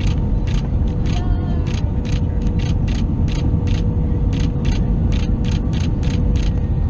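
Airbus A320 cabin noise: a loud, steady deep rumble with a constant hum, overlaid by sharp clicks or rattles repeating about three times a second.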